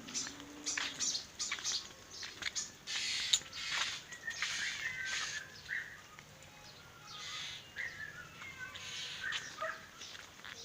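Birds calling: short chirps mixed with harsher, crow-like calls repeating irregularly.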